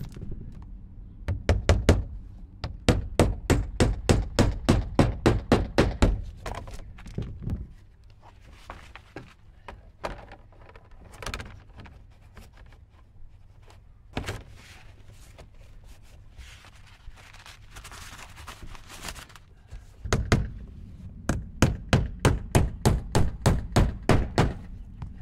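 Claw hammer driving roofing nails through an eaves support tray into a fascia board: a run of quick strikes about three a second for several seconds after the start, then quieter handling noise with a couple of single knocks, then another run of quick strikes near the end.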